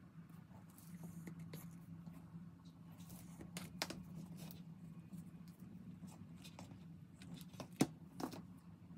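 Faint handling noise: light rustling and small clicks of plastic-gloved hands working a plastic cup, a wooden stir stick and a tray as epoxy resin is stirred and spread, with a sharper click near the end. A steady low hum runs underneath.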